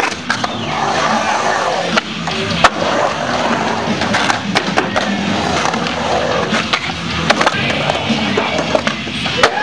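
Skateboard wheels rolling and carving on the concrete of an empty pool bowl, a steady rumble broken by sharp clacks and knocks of the board, the loudest almost three seconds in, over music.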